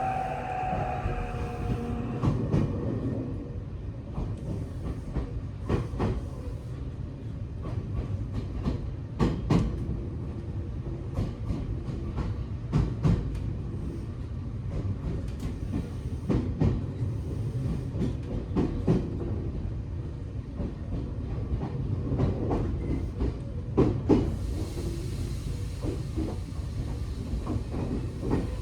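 Tokyo Metro 8000-series train heard from inside the car as it slows toward a station. A motor whine falls away over the first two seconds, leaving a steady rumble. Over the rumble, the wheels click over rail joints and points, mostly in pairs every few seconds, with a hiss of air near the end.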